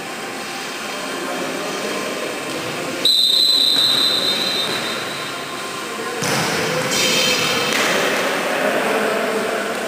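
Referee's whistle blown once, a shrill steady tone of about a second and a half, in an echoing sports hall during a volleyball match. Before it, the hall's hubbub of players' voices. From about six seconds in, a louder spell of shouts and court noise.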